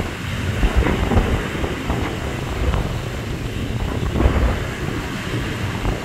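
Wind buffeting the microphone in uneven gusts, a deep rumble, over the steady wash of choppy surf.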